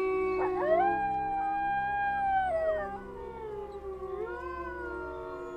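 A pack of grey wolves howling together: several long howls overlap, each rising, holding and then falling away. The loudest howls die down about three seconds in, and a fresh round of howls rises soon after.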